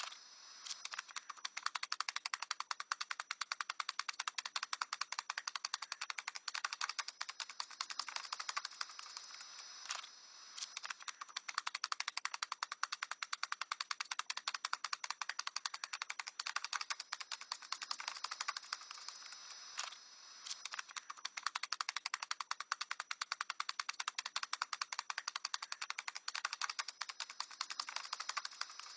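A parrot tap dancing: fast, rattling streams of sharp taps, many a second, breaking off briefly a few times before starting again.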